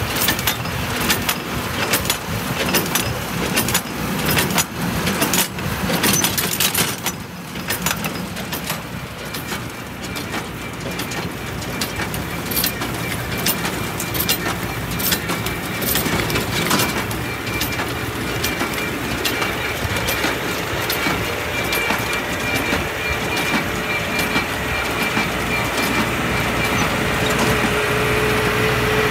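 Tractor-drawn New Holland baler working: a steady tractor engine hum under a run of sharp clacks and knocks from the baler's moving parts. The knocks come thick in the first half and thin out after about 17 seconds.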